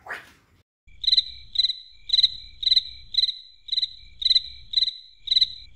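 A cricket chirping in an even rhythm, about two short high chirps a second, starting about a second in after a brief silence.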